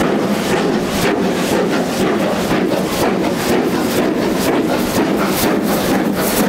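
GWR Castle class steam locomotive 4079 Pendennis Castle working hard as it pulls away, its exhaust chuffing in a steady rhythm that quickens toward the end.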